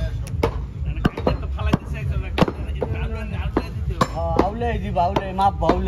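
Heavy butcher's cleavers chopping through beef and bone on wooden chopping blocks: sharp, irregular strikes, roughly two a second, from more than one butcher at once.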